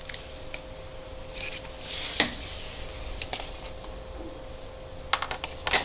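Black plastic drip tape rubbing and rustling as it is handled and its folded end is closed with a cut ring of tape, with one sharp click about two seconds in and a quick run of clicks near the end. A faint steady hum sits underneath.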